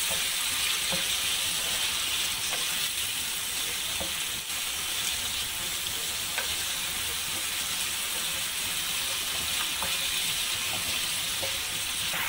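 Diced raw chicken sizzling in oil and garlic-ginger paste in a frying pan, with a steady hiss, while a wooden spatula stirs it. A few light taps of the spatula on the pan are heard.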